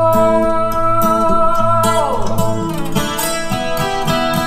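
Background music: a song with guitar, where a long held note slides down about two seconds in and gives way to plucked guitar over a steady beat.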